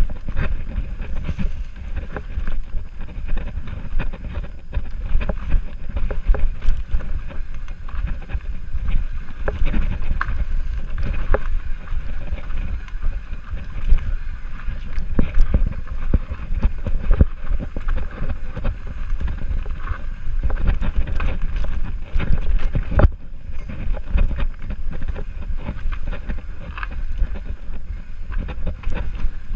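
Mountain bike riding fast down a dirt forest trail, heard through the camera's microphone: a steady low rumble of wind on the mic and tyres on dirt, with frequent clicks and knocks as the bike jolts over roots and rocks.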